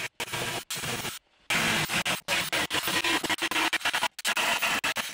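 Pneumatic air saw cutting through the sheet-steel transmission tunnel floor, running in short stop-start spurts with abrupt cut-outs. It is a frustrating tool that keeps stuttering even though it has been oiled several times.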